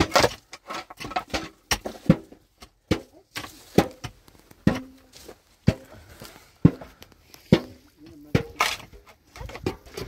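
A series of irregular knocks and clatters, roughly one to two a second, some with a brief ringing tone after the hit.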